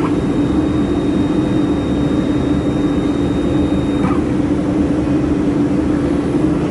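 Steady mechanical hum and whir of running laser welding equipment, with a continuous low drone and no breaks. A faint high-pitched tone stops about four seconds in.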